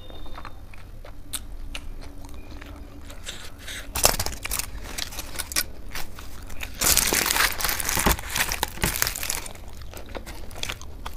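Close-miked chewing of food, with louder rustling and crackling as a thin rumali roti is torn and folded by hand. The loudest handling comes about four seconds in and again from about seven to nine and a half seconds.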